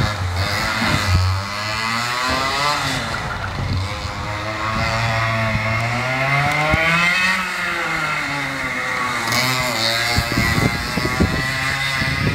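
A 100 cc two-stroke racing kart engine running hard around the track. Its note climbs as it accelerates and drops as it slows, three times over, with some short crackles mixed in.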